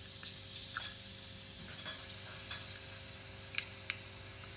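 Fenugreek seeds and freshly added turmeric sizzling in hot olive oil in a small pan, a tempering for the dish. A steady hiss with small crackles throughout, and two sharper pops about three and a half seconds in.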